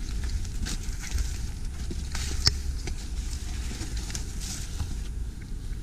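Footsteps through snow-covered undergrowth, with twigs and brush crackling and snapping underfoot, one sharper snap about halfway through. A steady low rumble runs underneath.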